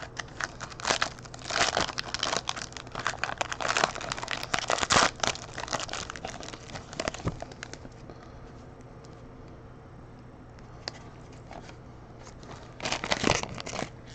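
Trading-card pack wrapper being torn open and crinkled by hand. There is dense crackling and rustling for about the first seven seconds, then a few faint ticks, then another short burst of crinkling near the end.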